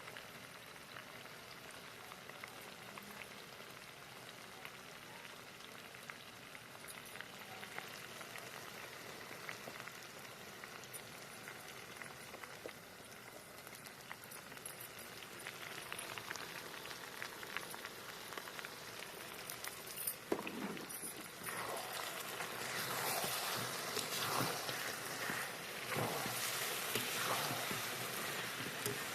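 Chicken masala curry cooking in a pan, a steady sizzling and bubbling. About two-thirds of the way through it gets louder, with a run of quick knocks and scrapes from stirring.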